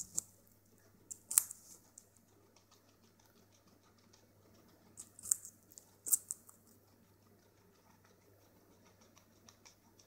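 Raw carrot crunched between a small pet's teeth: crisp clicking bites in quick clusters, about a second in and again around five and six seconds in, with fainter ticks between.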